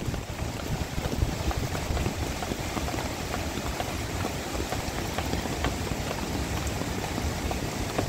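Steady rain falling, with many separate drops ticking.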